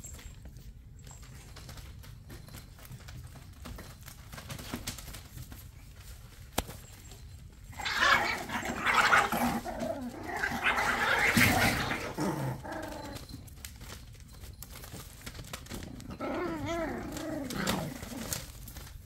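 Seven-week-old puggle puppies yapping and whining in play, in a loud stretch of several seconds that starts about eight seconds in, then a few falling whines near the end. Before that, only soft scuffling of paws on newspaper.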